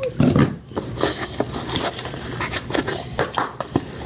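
A spoon stirring thick fluffy slime (glue, shaving cream and saline solution) in a bowl. It makes irregular sticky crackles and clicks of the spoon against the bowl, with a dull thump just after the start.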